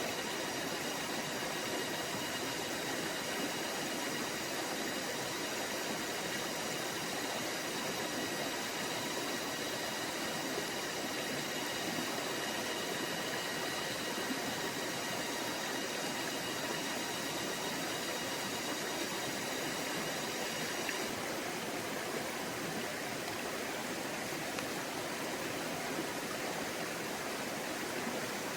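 Forest stream flowing, a steady rush of running water. A faint set of steady high tones over the water stops about two-thirds of the way through.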